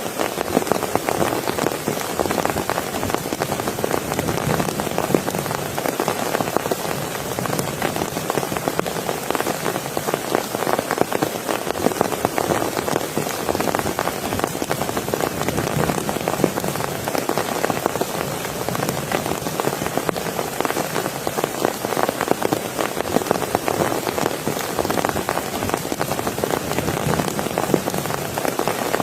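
Steady rain falling, a dense, unbroken patter of countless drops hitting a surface.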